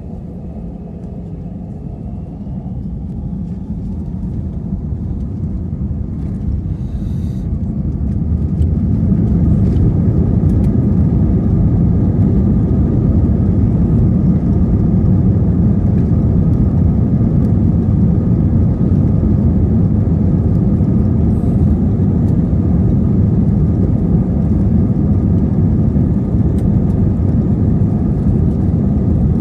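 Airbus A320 jet engines and takeoff-roll rumble heard from inside the cabin over the wing. The sound grows louder over the first eight or nine seconds as takeoff thrust comes up, then holds as a steady, loud low rumble with a faint whine from the engine fans.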